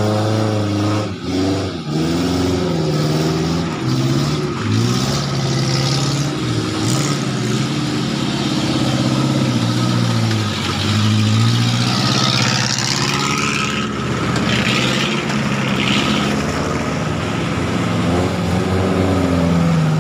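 Off-road 4x4 engine revving up and down repeatedly as the vehicle drives through a muddy river bed, with a rush of splashing water around the middle.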